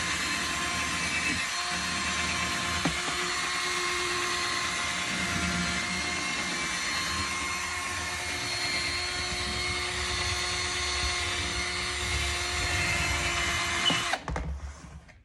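A small electric motor running steadily with a constant whine, cutting off abruptly near the end.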